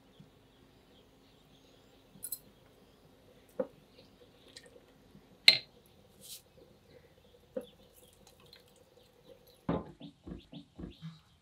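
A few scattered sharp clinks of a metal ladle against a steel cooking pot, the loudest about five and a half seconds in. Near the end, a quick run of soft wet thumps as hands work food in a metal bowl.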